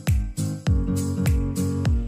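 Background music: upbeat track with a steady kick-drum beat and plucked guitar.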